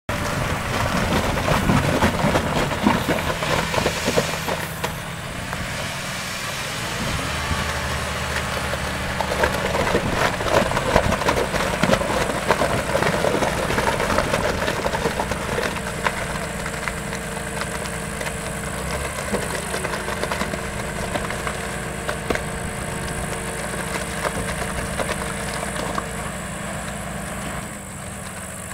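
John Deere tractor's diesel engine running steadily while its hydraulics raise a tipping trailer's body to dump wet sludge. A steady extra tone joins the engine about halfway through.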